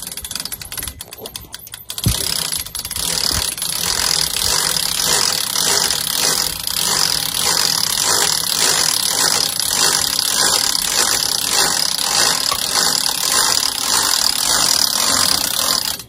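Hand-crank winch on a homemade bale unroller being cranked, its ratchet pawl clicking rapidly and evenly as it hoists a round hay bale off the ground. The clicking starts about two seconds in and stops suddenly at the end.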